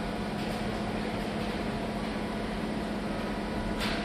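Steady hum of factory-hall machinery, with a short click near the end.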